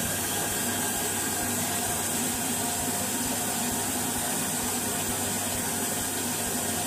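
Water from a bathroom tap running steadily into a ceramic washbasin, a constant even hiss and splash.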